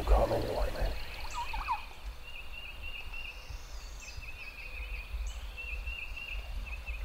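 Wild turkey gobbler gobbling once, lasting under a second at the start. A thin, steady, high trill runs on in the background.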